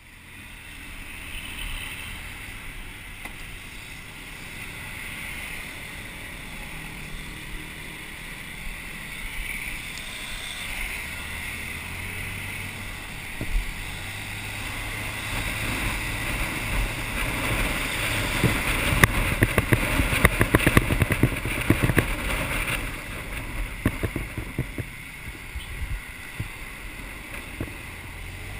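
Motor scooter engine running as it rides through traffic, mixed with wind rushing over the camera's microphone. The wind noise builds and turns rough and gusty a little past halfway, then eases near the end.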